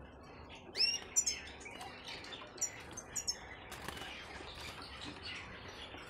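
Small finches chirping in short, high calls that sweep in pitch, in quick runs about a second in and again around three seconds. A brief flutter of wings comes a little before four seconds as a European goldfinch is released into the aviary.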